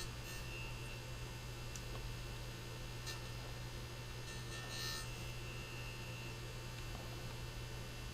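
Steady low electrical hum with a faint high tone above it and a few light clicks.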